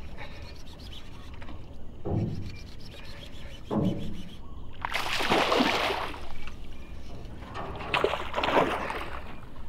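Water splashing and sloshing in four bursts, the loudest about five seconds in, as a hooked giant snakehead thrashes at the surface beside a small boat.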